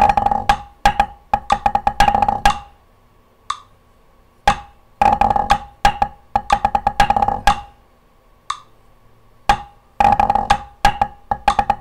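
Wooden drumsticks on a practice pad playing the same pipe-band snare drum phrase three times over, each a quick run of crisp taps lasting about two and a half seconds, with single taps in the pauses between.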